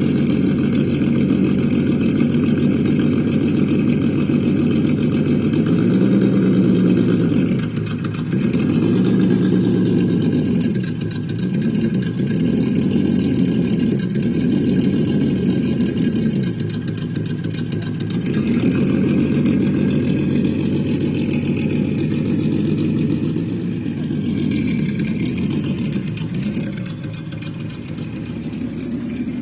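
ESS Dual engine sound module on a Traxxas TRX-4 RC crawler playing a simulated engine through its speaker. It idles steadily, with a series of short revs that rise and fall as the throttle is worked.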